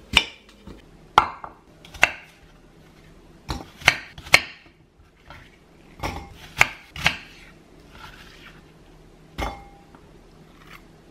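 Dishes and utensils clattering on a kitchen surface: about a dozen sharp, irregular clacks and knocks, some with a short ring.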